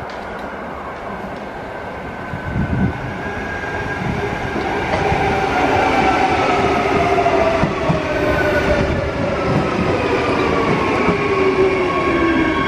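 Freight train on the move, growing steadily louder as it nears. From about halfway, several high tones slide slowly down in pitch over the running noise.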